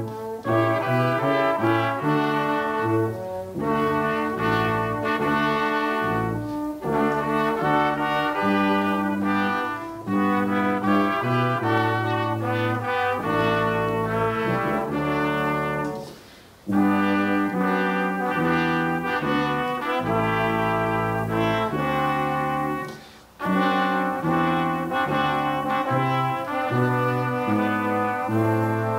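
A brass ensemble playing slow music in held chords, with a couple of brief breaks between phrases.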